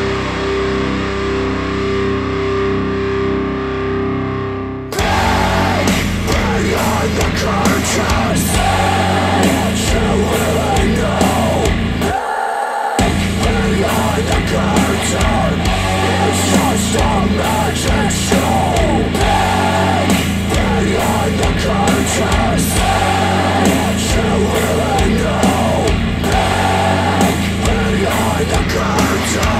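Death metal music played through hi-fi bookshelf speakers: one track ends and a new one starts about five seconds in. There is a short break in the bass near the middle.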